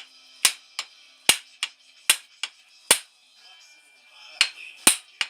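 Hammer blows driving a walnut handle onto the tang of a lathe chisel, each leaving a short metallic ring. The blows come in pairs, a harder strike then a lighter one, at a steady pace with a brief pause partway through.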